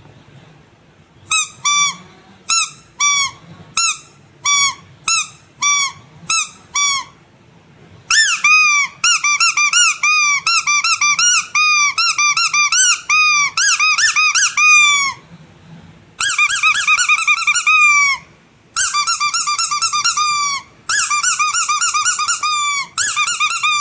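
Squeaky rubber animal toy squeezed by hand. It gives about ten single squeaks at a steady pace, then from about eight seconds in rapid squeaking in long runs broken by short pauses.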